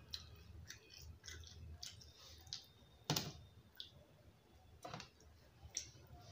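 A few faint, scattered clicks and knocks of a plate being handled on a table, the loudest a sharp knock about three seconds in as it is picked up.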